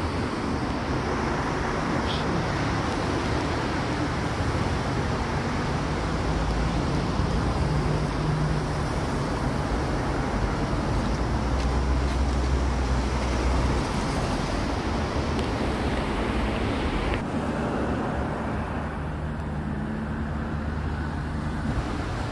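Steady highway traffic noise from cars going by, with the deeper rumble of a passing vehicle about halfway through.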